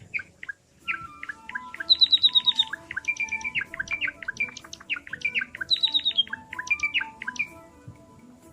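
Java sparrow singing: quick runs of clear, repeated chirping notes, several held on one pitch, ending about a second before the end.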